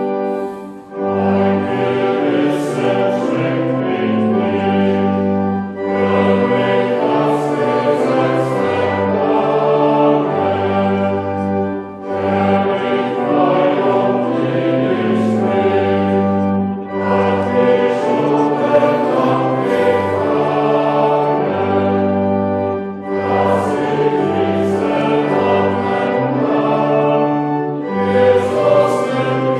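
Voices singing a hymn together over a steady accompaniment with held low notes, phrase by phrase with short breaks every five or six seconds.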